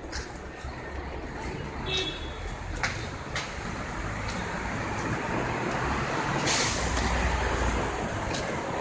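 Flatbed tractor-trailer carrying steel girders moving slowly past at close range: a low engine and tyre rumble that grows steadily louder, with a brief hiss of air about six and a half seconds in.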